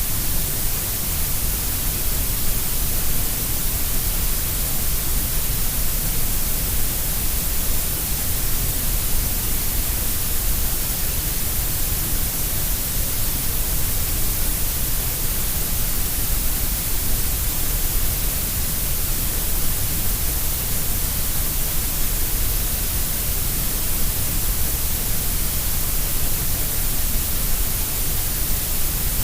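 Steady grey noise, an electronically generated hiss shaped to sound equally loud at all pitches. It is unchanging throughout, with a deep rumble and a bright hiss stronger than the middle range.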